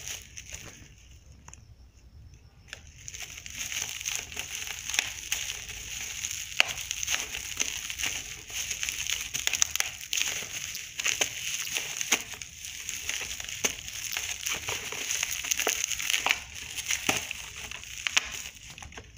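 Clear plastic bubble wrap crinkling and crackling as it is handled and pulled off a small box. It starts about three seconds in and continues as a dense, irregular run of small crackles.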